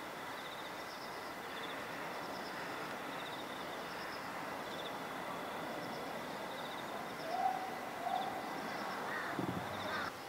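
Outdoor ambience of insects chirping in short trills that repeat about once a second, with a brief hoot-like call about seven seconds in and a few louder sounds just before the end.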